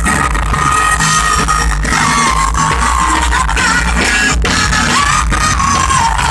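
Loud live band music with a female singer holding long, slowly gliding notes over heavy bass and guitar.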